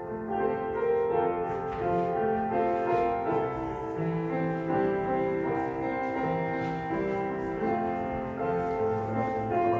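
Slow, soft keyboard music: held chords and a melody line, each note sustained about a second before the harmony moves on.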